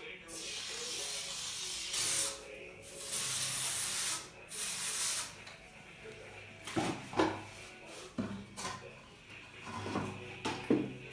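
Polyurethane expanding foam hissing out of a foam gun in three short bursts, about two, three and four and a half seconds in, followed by scattered clicks and knocks.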